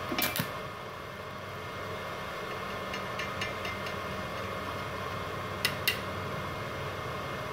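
Steady hum of a Multipro INA 125A IGBT inverter welder's cooling fan running, with a faint steady whine. A few light ticks come in the middle, and two sharp clicks close together near the end.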